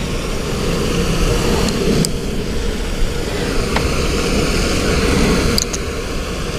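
Wind rumbling steadily on the microphone, with a few faint clicks.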